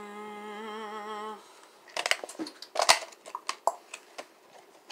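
A voice hums one held note with a slight wobble for about a second and a half. Then come quick clicks, rattles and a sharper knock of small plastic craft supplies being handled, as washi tape rolls are picked through.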